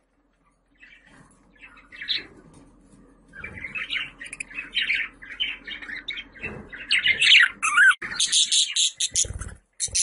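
Budgerigars chattering and warbling: a fast run of short high chirps and squawks that starts after a quiet second, thickens, and is loudest near the end. A low thump or two comes in near the end.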